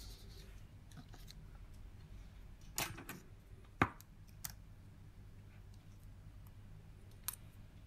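A few faint, sharp clicks and taps from a cracked phone and a small pry tool being handled against a work surface, with the clearest pair about three and four seconds in and a single one near the end.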